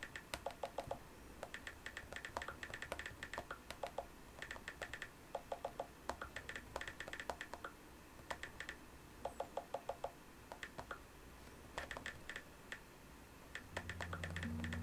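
Typing on an iPad: quick key taps in irregular bursts, some in fast little runs. Music fades in near the end.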